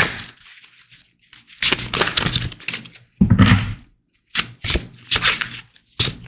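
Tarot cards being shuffled and handled: bursts of crackling rustle, with quick clicky riffles in the last two seconds.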